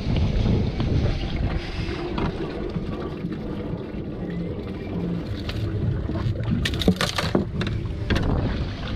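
Wind rumbling on the microphone aboard a small fishing boat, with a cluster of sharp knocks near the end as a dorado is handled on the fibreglass deck.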